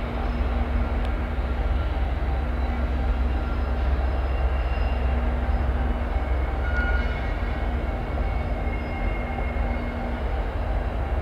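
Diesel locomotives running in a rail yard: a steady low rumble with a faint hum that comes and goes.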